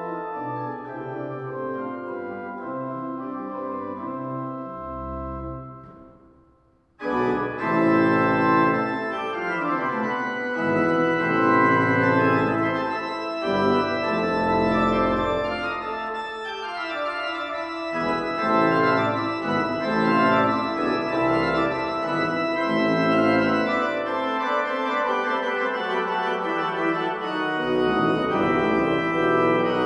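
Organ playing the postlude after the closing benediction. The music dies away about six seconds in, then a louder, full-voiced passage starts abruptly about seven seconds in and carries on.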